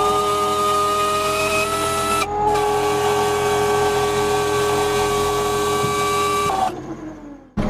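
Steady high-pitched mechanical whine of a motor held at nearly constant pitch, broken off briefly about two seconds in, then dying away near the end.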